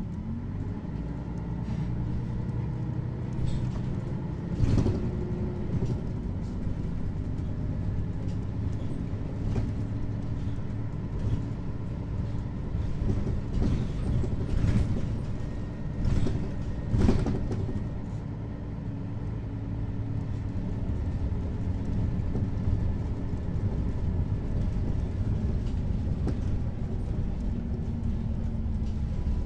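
Mercedes-Benz Citaro articulated bus's diesel engine running steadily. Its pitch climbs just after the start and drops again near the end, with several short knocks and rattles in the middle.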